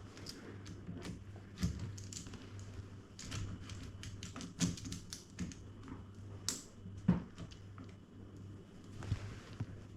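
Irregular clicks and taps of plastic and metal crossbow accessories being handled and fitted onto the crossbow, such as a quick-release scope mount going onto the rail, with a few louder knocks.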